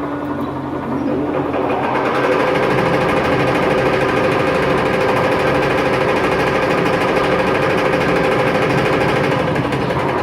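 Imor metal lathe running on a test after repair: a steady mechanical whine over a dense rattle, getting louder about two seconds in.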